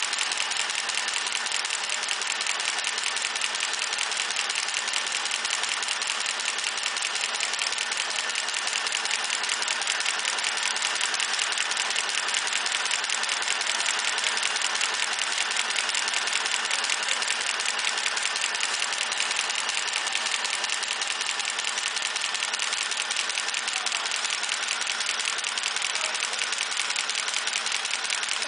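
CNC three-axis brush-making machine tufting round hair brushes, running with a steady, rapid mechanical clatter of its tufting strokes.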